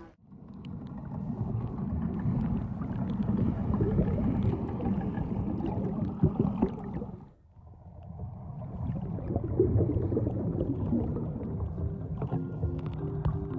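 Muffled water noise picked up by a camera held underwater while snorkeling: a low, steady rushing with small bubbling clicks, dropping out briefly about seven seconds in. Music comes in near the end.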